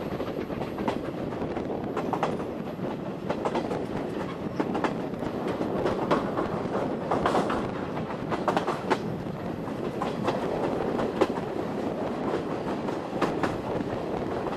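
Passenger coach of a steam-hauled Oigawa Railway train running along the line: a steady rumble of wheels on the track with irregular sharp clicks and clacks as the wheels cross rail joints.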